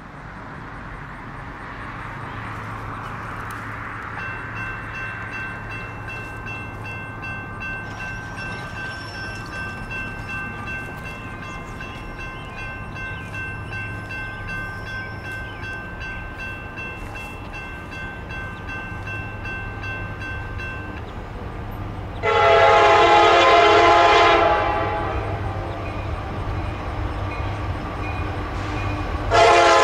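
Diesel freight locomotives of an approaching CSX train, a steady low rumble, with a long, loud locomotive horn blast about two-thirds through that fades off, and a second horn blast starting just before the end.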